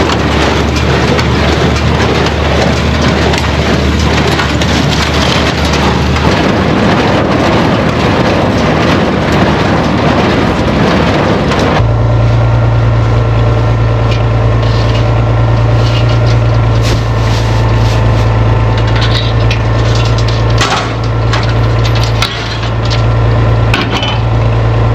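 New Holland 268 small square baler running behind a Farmall 460 tractor, packing hay with a dense crunching clatter. About twelve seconds in the sound changes abruptly to the tractor's steady engine drone, with the baler's knocks and clicks over it.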